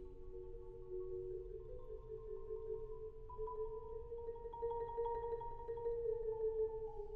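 Solo marimba played quietly with four mallets: slow, sustained chords that move to new notes about three seconds in.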